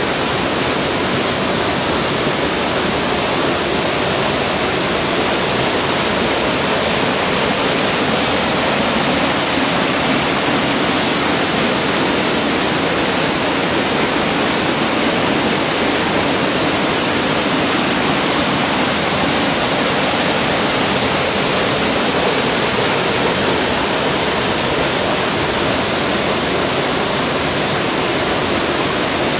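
Waterfall pouring over boulders into a pool: a loud, steady rush of falling water.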